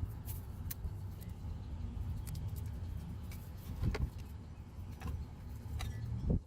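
Close handling noise as wires are wrapped in electrical tape: a low steady rumble with a few light clicks and knocks, the loudest about four seconds in and just before the end.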